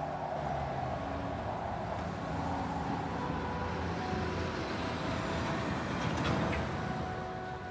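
Street traffic: the steady road noise of cars and buses driving past on a city road.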